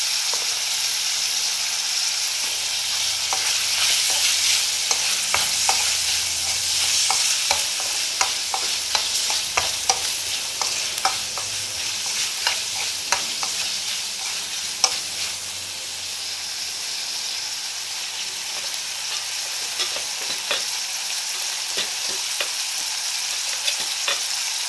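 Chopped bell peppers, onion and mushrooms sizzling in hot oil in a wok, with a steel spoon stirring and scraping against the pan. The spoon's clicks and taps come thick in the first half and thin out after.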